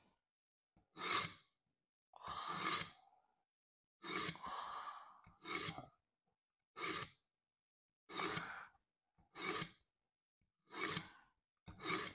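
A knife blade drawn again and again through a Smith's mini pull-through sharpener: about nine metal scraping strokes, roughly one every second and a half, as the edge is honed in the sharpener's slot.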